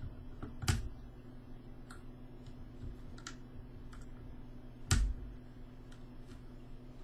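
Scattered sharp plastic clicks and taps from handling a mechanical keyboard and its switches, with two louder clicks, one just under a second in and one about five seconds in, over a faint steady low hum.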